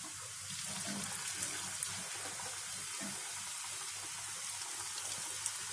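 Samosas deep-frying in hot oil in a kadhai: a steady sizzling hiss with a few small crackles about a second in and again near the end.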